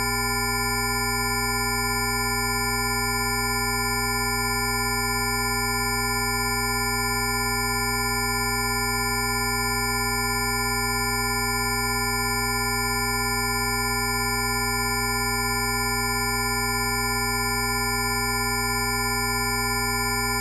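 Electronically generated Rife frequency tones: several pure sine tones at fixed pitches, from a deep low hum up to thin high whistles, sounding together and held steady without any change.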